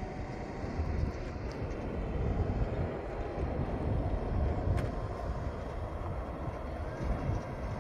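Pickup truck engine approaching along a dirt road, heard as a low, uneven rumble.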